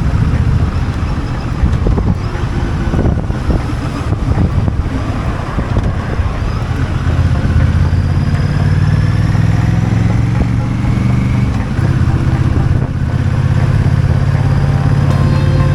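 Honda Rebel 1100's parallel-twin engine running as the motorcycle is ridden, its pitch rising between about eight and eleven seconds in.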